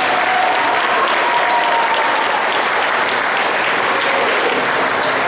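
An audience clapping steadily, a dense, even patter, with a few voices calling out over it in the first moments.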